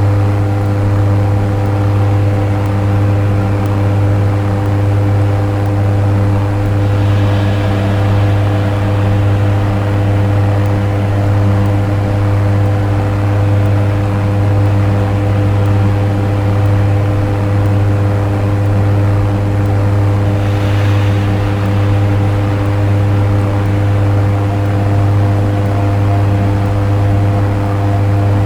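Dark ambient synthesizer drone: a loud, steady low hum with several held tones above it and a hiss of noise. Two brief airy swells rise and fade about seven and twenty-one seconds in.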